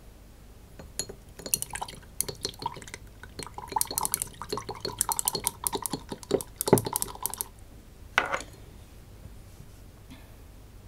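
A thin stick clinking and scraping against the inside of a small glass jar while wet, paint-soaked cotton wool is stirred, a quick run of light clinks that ring faintly. One louder knock near the end.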